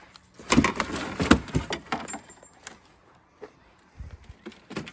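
Fishing rods and tackle being set down in the cargo bed of a Can-Am side-by-side: a run of clattering knocks lasting about two seconds, then a few lighter clicks near the end.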